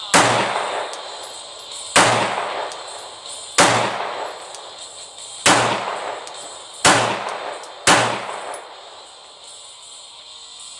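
Six 9mm pistol shots from a Glock 19X, unevenly spaced over about eight seconds, each followed by a long echoing tail.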